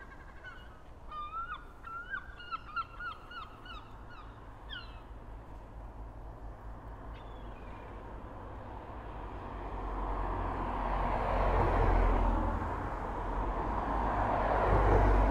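A bird gives a quick run of about ten short calls in the first five seconds. A passing vehicle's rumble then builds up and is the loudest sound in the second half.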